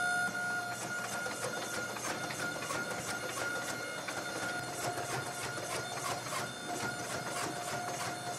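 Forge running steadily with a constant whine and a dense, irregular crackle of clicks while a stacked Damascus steel billet heats to forge-welding temperature.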